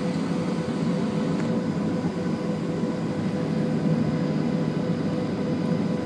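Steady cabin noise inside a Boeing 737 as it taxis: the jet engines' even hum with a few steady tones above a low rumble.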